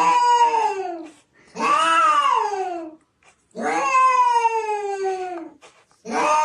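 A cat yowling in long drawn-out wails, about four of them one after another, each sliding down in pitch at its end.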